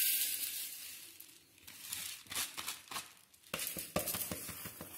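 Raw rice grains poured from a plastic strainer into a hot, dry metal pan: a hissing rush of grains that fades out within about the first second, followed by scattered light clicks and taps as the last grains drop and the strainer is handled over the pan.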